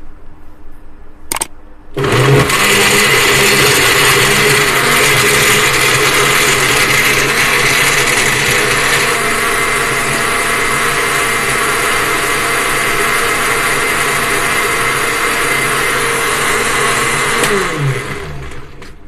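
Electric blender switched on about two seconds in, running steadily as it blends milk, banana and dates with ice cubes, then spinning down with a falling pitch near the end. A couple of short knocks before it starts as the lid is pressed on.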